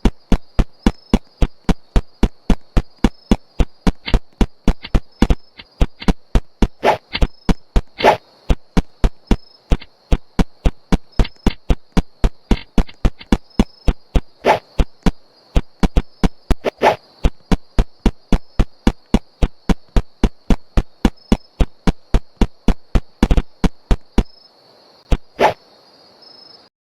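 A steady high-pitched whistle with sharp, evenly spaced clicks over it, about three a second. Both stop abruptly shortly before the end.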